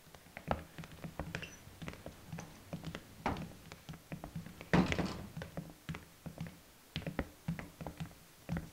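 Footsteps tapping on a hard hallway floor, with a heavier thud about five seconds in that rings briefly in the hard-walled space.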